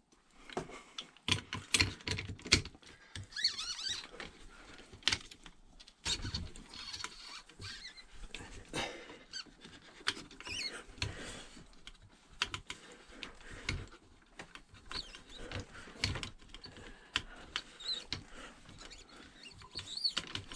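Spanner working the lock nut on the damper rod of a 2007 Suzuki GSX-R750 upside-down fork, with irregular metal clicks, taps and scrapes and a few faint squeaks, while the spacer is held down against the fork spring.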